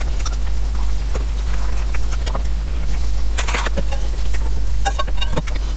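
Close-miked eating sounds: wet mouth clicks and chewing on soft chocolate mousse cake, with a spoon scraping and tapping the cup, a cluster of clicks about three and a half seconds in and a few short ringing clinks near five seconds. A steady low hum sits underneath.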